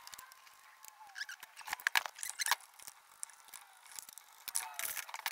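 Handling of a steel clock case and hand tools on a workbench: a series of sharp clicks, knocks and scrapes, busiest about two seconds in and again near the end.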